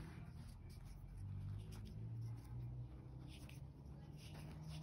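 Faint scratchy rubbing and small soft clicks as fingers pull the iPod touch Loop wrist strap through its button to adjust its length, over a faint low hum.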